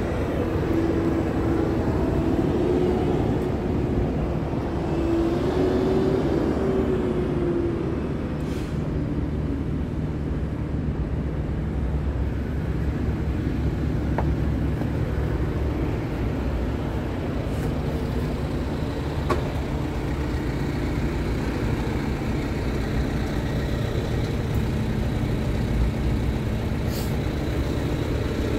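Scania P diesel truck engine idling steadily, a low even hum, with a wavering higher whine over the first eight seconds or so.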